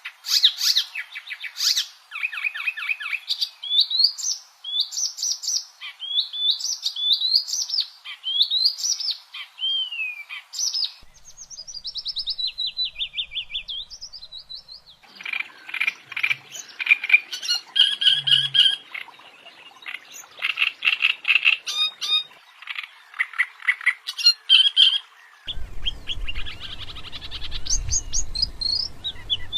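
Songbirds singing: a run of varied chirping and whistled phrases with sweeping notes and a fast trill, changing abruptly several times as one bird's song gives way to another's.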